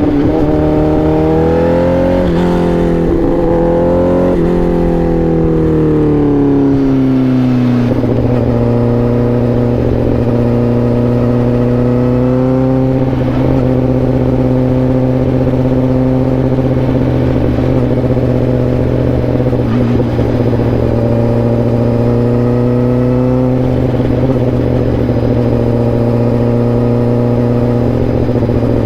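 Honda CBR1000RR-R SP's inline-four engine pulling briefly, then easing off over a few seconds and settling to a steady engine speed. Engine speed swells slightly twice later on.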